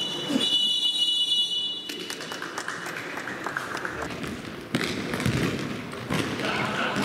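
A referee's whistle blown in a long, shrill blast that cuts off about two seconds in. After it comes the echoing noise of a futsal game in a sports hall, with the ball thudding on the hard floor and a sharp knock near five seconds in.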